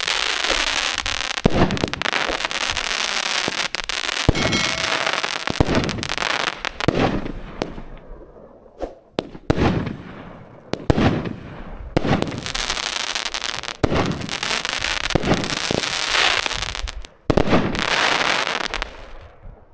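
A 12-shot, 200-gram consumer firework cake firing: sharp launch thumps and aerial bursts about every second or so, over a dense crackle, dying away near the end.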